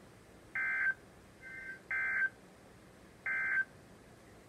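Emergency Alert System end-of-message signal: three short bursts of digital data tones, about 1.3 seconds apart, marking the end of the alert.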